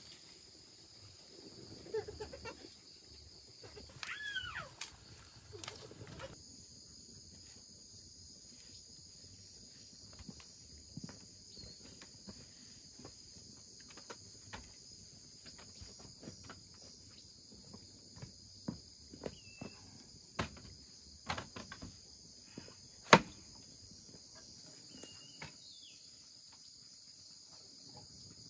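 Steady, high-pitched chorus of insects such as crickets, with scattered light clicks and knocks, one sharp knock about 23 seconds in. A few short rising-and-falling calls come around four to five seconds in.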